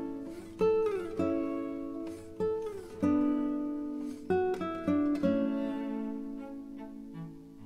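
Background music: a plucked-string instrumental of picked notes and chords, each fading out, with a couple of notes sliding down in pitch near the start.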